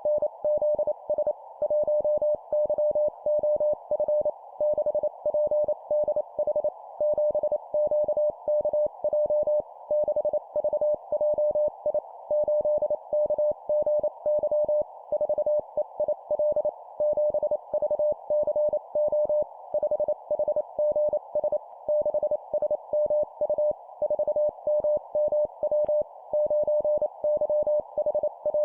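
Morse code (CW) sent at 25 words per minute: a single steady mid-pitched tone keyed on and off in rapid dots and dashes, spelling four-character groups of a number followed by three letters. A soft, even hiss runs beneath the tone.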